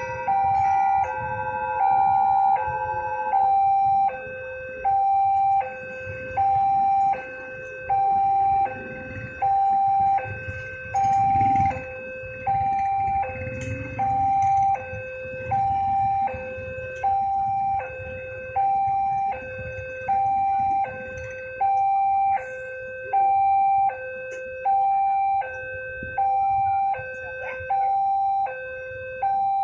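Railroad crossing warning alarm sounding its steady electronic two-tone 'ding-dong', a high note and a low note alternating about every 1.5 seconds, signalling an approaching train. A low rumble of idling motorcycle engines runs underneath.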